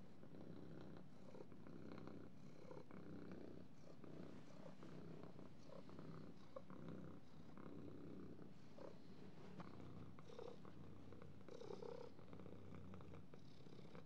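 Domestic cat purring, a low steady pulsing purr with a couple of short higher-pitched catches about three-quarters of the way through.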